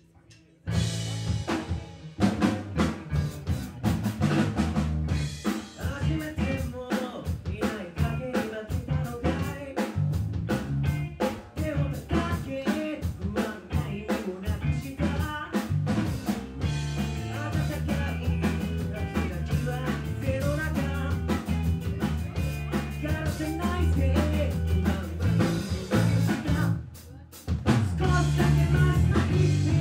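Live rock band playing: drum kit, electric bass and guitar come in together about a second in, with a singer over them. The band drops out briefly near the end, then comes back in louder.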